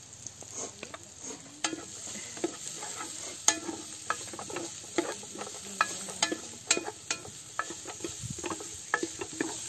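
A wooden spoon scrapes and knocks against a metal stockpot as it stirs, in irregular strokes, over a steady sizzle of chopped aromatics frying in oil.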